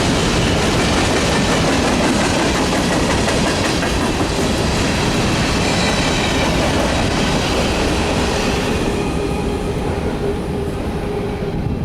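Loaded grain train rolling past at speed: a steady rumble and clatter of freight car wheels over the rails, with some clickety-clack. Faint wheel squeal rings through in the later part as the sound eases slightly.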